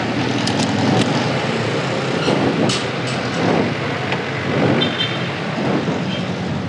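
Yamaha NMAX scooter's engine idling steadily while stopped at the curb, with street traffic around it and a few short clicks and knocks.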